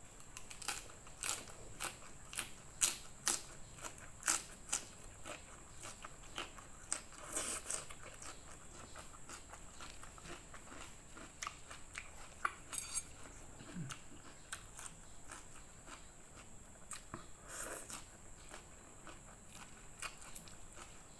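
Close-miked chewing of a mouthful of fried noodles with raw bean sprouts and raw leafy greens: a run of crisp crunches and wet mouth clicks, thickest in the first five seconds. A couple of longer, wetter sounds come about a third of the way in and again near the end.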